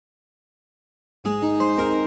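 Silence, then music starts a little over a second in: an instrumental intro of plucked-string notes over held tones.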